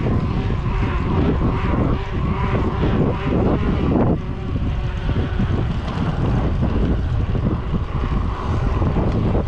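Wind buffeting the microphone over a steady rumble of tyres rolling on a dirt trail as a Yeti SB5 mountain bike is ridden.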